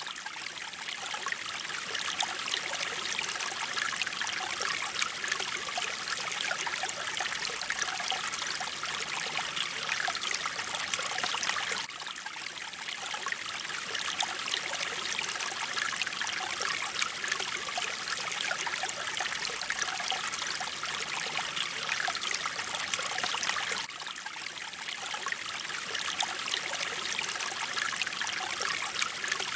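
Mountain stream water flowing and splashing steadily, a bright hiss of running water, dipping slightly in level about every twelve seconds.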